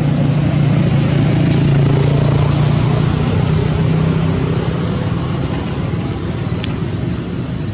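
A motor vehicle engine running with a steady low hum, loudest in the first few seconds and slowly fading in the second half.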